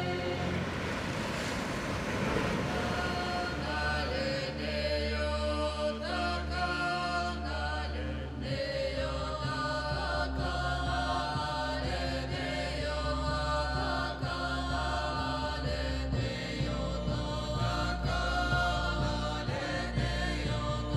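Film score of voices chanting a Lithuanian ritual folk song over a steady low drone. A rushing noise swells and fades in the first few seconds.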